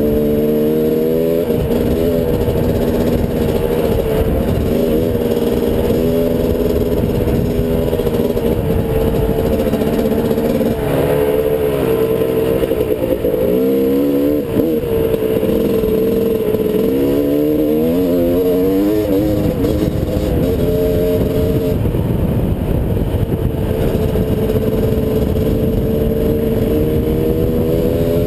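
Dirt bike engine running under way, its pitch rising and falling over and over with throttle and gear changes, above a steady low rumble.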